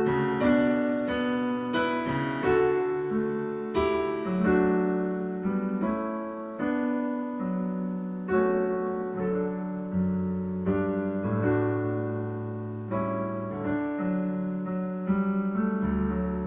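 Digital piano playing a slow hymn in full chords, a new chord struck about once a second and left to ring, with lower bass notes added about ten seconds in.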